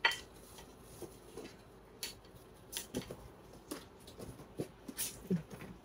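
Scattered light clicks and taps of spoons and forks on plates and serving dishes as dinner is dished up, with a couple of softer knocks near the end.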